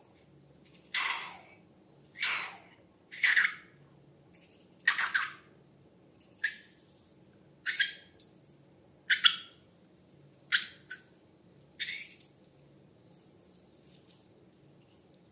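Slime being worked by hand in short wet squelches, about nine of them, roughly one every second and a half.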